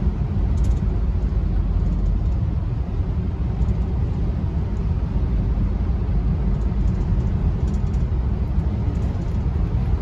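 Steady low rumble of a car driving on a paved road, heard from inside the cabin: tyre and engine noise.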